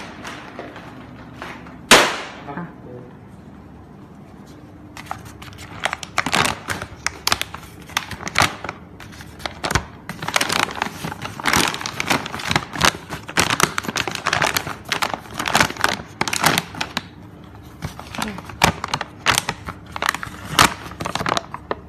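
Large plastic dog food bag being handled: a sharp crack about two seconds in, then a long run of irregular crinkling and crackling.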